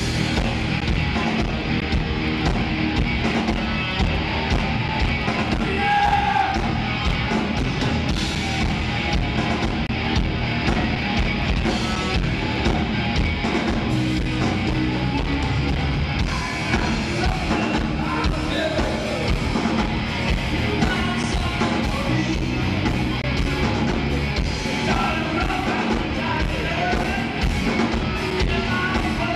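Rock band playing live: electric guitars, bass and a drum kit in a dense, continuous mix, with a singer.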